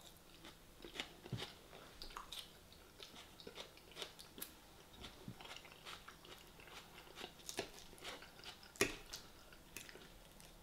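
Close-up chewing of a mouthful of raw salad with crisp lettuce: a run of quiet, irregular wet crunches and clicks, with one louder click a little before the end.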